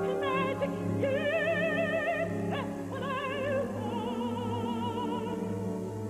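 Operatic soprano singing a slow phrase of held notes with wide vibrato, over an orchestra holding sustained chords.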